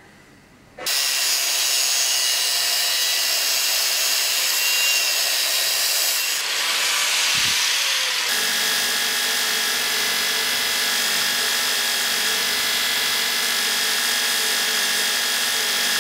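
Belt grinder running with a knife handle held against the belt: a loud, steady grinding hiss with a high whine. It starts abruptly about a second in and changes character abruptly around eight seconds in.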